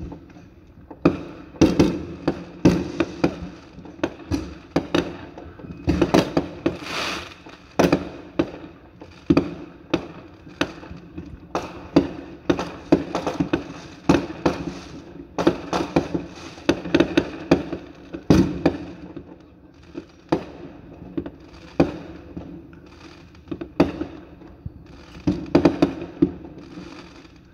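Many fireworks going off around the neighbourhood at once: aerial shells bursting in a dense, irregular string of sharp bangs, each followed by a short echo.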